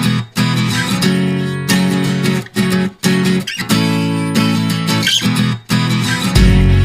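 Background music of strummed acoustic guitar, with a deep bass coming in near the end.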